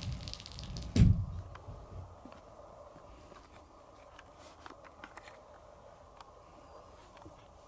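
A single low thump about a second in, then faint scattered light taps and clicks.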